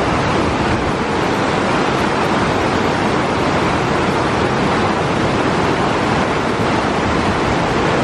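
Fast-flowing stream rushing over rapids: a loud, steady roar of white water.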